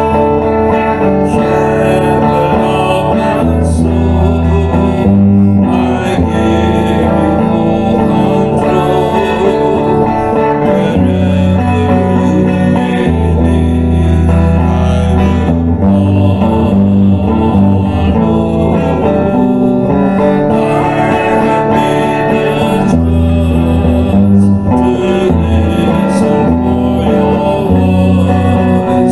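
Electric guitar playing a slow worship song over sustained low bass notes that change every couple of seconds, with a man's voice singing along.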